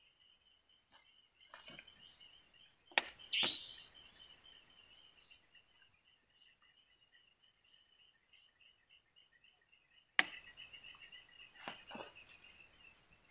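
Night insects chirring steadily, with pulsed high chirps over the top. A few sharp knocks and clatters break in, about three seconds in and again about ten and twelve seconds in.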